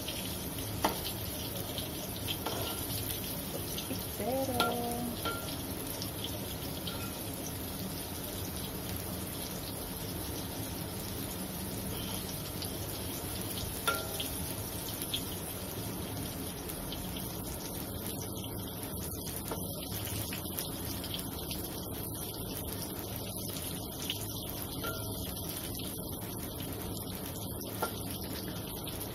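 Flour-battered eggplant sticks deep-frying in oil in a wok, a steady sizzle, with a few sharp clicks of the metal spatula against the wok.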